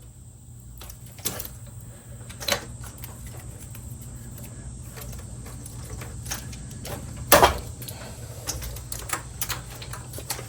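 Scattered metal clicks and knocks from removing a truck's front wheel hub assembly, with one louder knock about seven seconds in, over a low steady hum.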